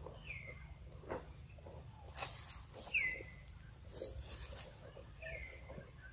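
A macaque chewing soft papaya, with small wet smacks and a couple of brief rustles. Over it, a bird gives a short high chirp falling in pitch, three times about two and a half seconds apart, the middle one the loudest.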